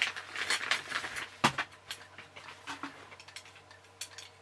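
Metal tee hinges being taken out of their packaging. Packaging rustles and crinkles for about a second and a half, then comes one sharp metallic clink, followed by a few lighter clicks.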